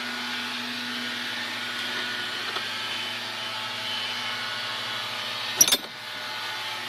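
Sharp metal clank of a freezer truck's rear door latch and hinges as the door is swung open, about five and a half seconds in, over a steady mechanical hum.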